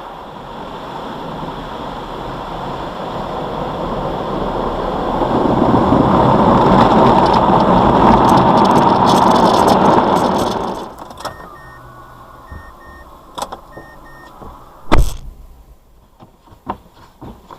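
Car noise swelling into a loud, steady rush over several seconds, then cutting off sharply about eleven seconds in. It is followed by short repeated electronic beeps, a single loud thump like a car door, and a few clicks.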